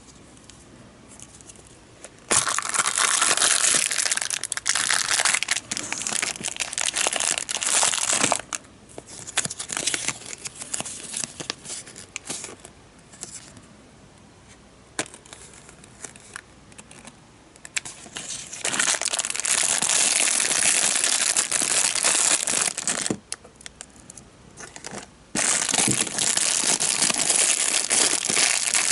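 Crinkling and tearing of a clear plastic bag and a paper insert as a gashapon capsule toy is unpacked, in three long loud bursts with quieter rustling and a few small clicks between.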